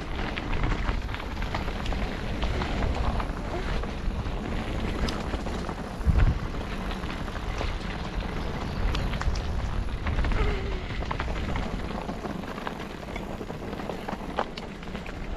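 Mountain bike riding over a dirt woodland trail: tyre noise with frequent clicks and rattles over bumps and roots, and a heavier knock about six seconds in. Low wind rumble on a helmet-mounted microphone runs under it.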